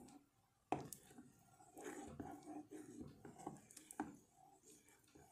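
Metal spoon stirring a thick white sauce in a steel pot, a soft wet squelching. Two sharp clinks of the spoon against the pot, one just under a second in and one about four seconds in.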